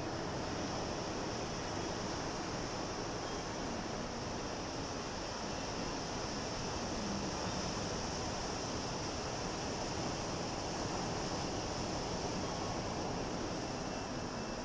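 Sea waves: a steady, even wash of surf with no single break standing out.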